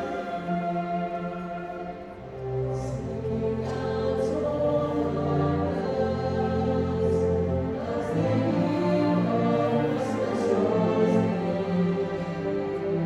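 High school orchestra playing a slow passage of long, sustained notes; it dips in loudness about two seconds in, then swells again.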